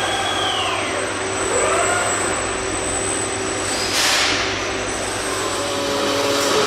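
Industrial robot arms' servo drives whining, gliding up and down in pitch as the arms speed up and slow down, over a steady machine hum. A short burst of hiss about four seconds in.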